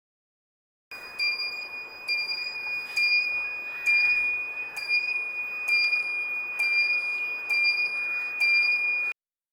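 Electronic bicycle indicator sound from a home-made sound-effect circuit: a steady high-pitched beep with a regular tick pulsing a little faster than once a second, starting about a second in and cutting off suddenly near the end.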